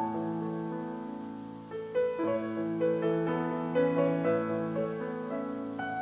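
Background instrumental music with slow, held chords.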